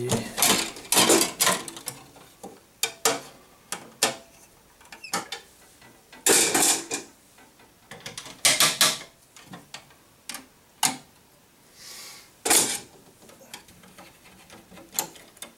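Electrical wires being worked into breaker terminals in a steel breaker panel, with a screwdriver tightening the terminal screws: scattered clicks, taps and short metallic scrapes, with longer scraping rubs about six and nine seconds in.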